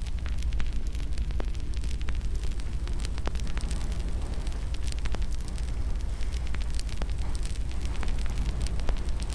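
Wood fire in a fireplace crackling, with frequent sharp irregular pops and snaps over a steady low rumble of the flames.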